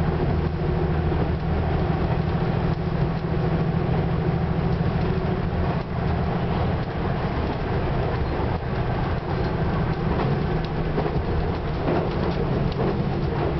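Diesel express railcar running along the line, heard from inside the train: a steady low engine drone over the running noise of the wheels on the track.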